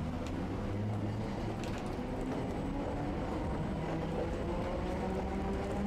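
Streetcar running along its track, heard from inside the car: a steady rumble with the traction motor's whine in several gliding tones that rise in pitch near the end as it picks up speed.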